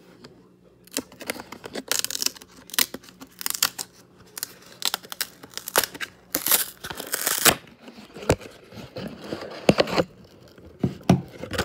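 Packaging being handled and torn open: irregular crinkling and tearing in repeated bursts, with sharp crackles.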